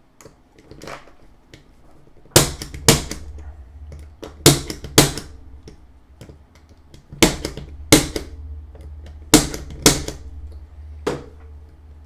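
Spring-loaded 110 impact punch-down tool snapping as it seats and trims the individual wires of a CAT6 cable into a keystone jack's 110 slots. About eight sharp snaps, coming roughly in pairs every two seconds or so.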